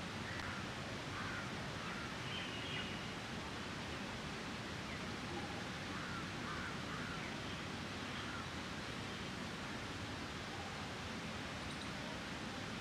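Outdoor ambience: a steady background hiss with a few faint, short bird chirps scattered through it.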